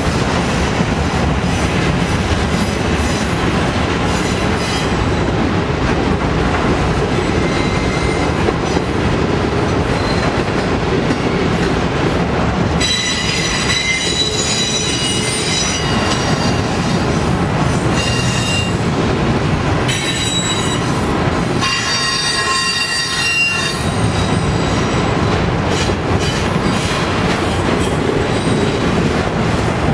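Freight train of autorack cars rolling past close by, with steady wheel-on-rail noise. High-pitched wheel squeal rises above it about halfway through, and again a few seconds later.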